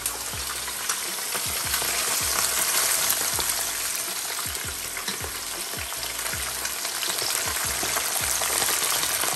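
Two whole red snappers frying in hot oil in a stainless steel pan: a steady crackling sizzle with scattered sharp pops, growing louder over the first few seconds as the second fish goes in.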